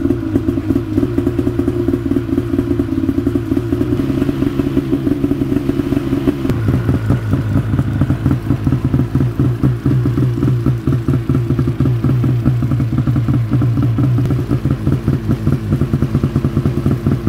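Arctic Cat M8000 snowmobile's 800 cc two-stroke engine idling just after start-up, a steady fast-pulsing idle whose note shifts slightly lower about six seconds in.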